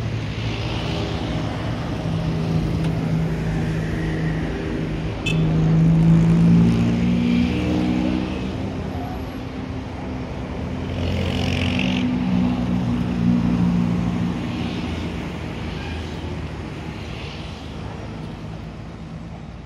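Large bus diesel engine running and revving, its pitch stepping up several times and falling back, loudest about six seconds in.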